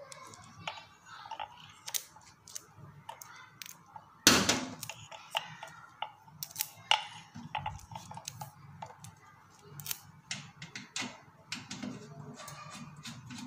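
Clicks and small rattles of a refrigerant charging hose and its brass fitting being handled and fitted onto an air conditioner's service valve, with one loud knock about four seconds in.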